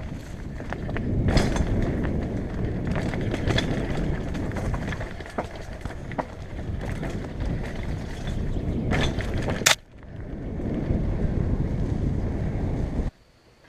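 Mountain bike descending a dirt trail at speed: tyres rumbling over the ground with constant rattling and clicking from the bike. A sharp, loud clack comes about ten seconds in, and the noise cuts off abruptly near the end.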